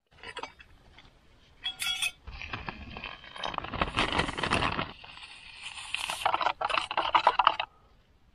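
A metal spoon clinking against a metal camping mug, then a plastic zip-lock bag crinkling and rustling in the hands for several seconds, stopping shortly before the end.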